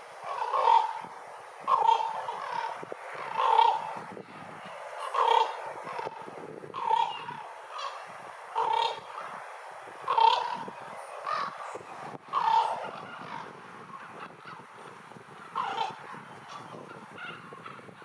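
Ravens calling over and over, about a dozen loud calls spaced a second or two apart, fainter in the last few seconds.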